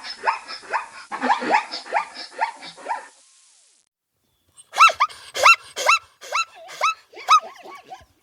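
An animal giving rapid series of short, arched, bark-like calls, about three a second. One bout ends about three seconds in, and after a short pause a second, louder bout follows.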